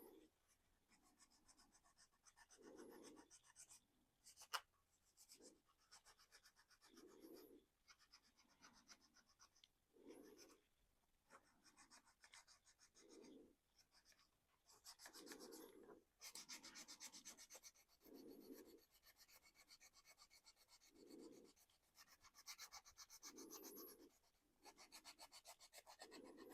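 Faint, irregular rubbing strokes on the painted plastic of a 3D-printed RC car body, wet-working the paint to wear it through for a weathered look. One sharp click about four and a half seconds in.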